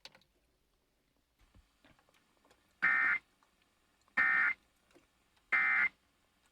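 Emergency Alert System end-of-message data tones through a radio speaker: three short, identical bursts of buzzing digital warble about a second and a half apart, signalling the end of the alert.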